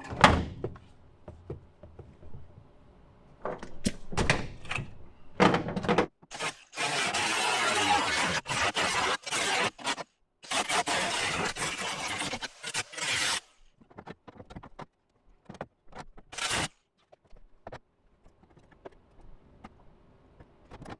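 Knocks and clanks of sheet metal and tools, then two welding runs of about three seconds each: a steady crackling hiss that starts and stops abruptly, followed by a few more light clicks.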